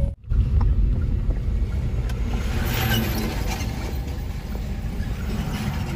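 Car driving on a road, heard from inside the cabin: a steady low rumble of engine and tyres, with a brief dropout just after the start.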